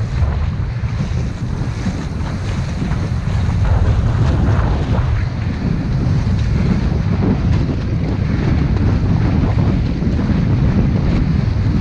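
Strong wind buffeting the microphone in a heavy steady rumble, with water rushing and splashing around a small sailboat underway.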